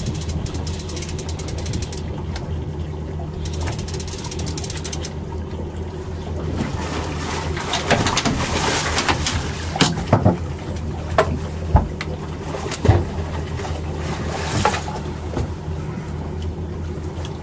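A boat engine idling with a steady low hum. From about halfway through, a handful of sharp knocks and clatter rise above it.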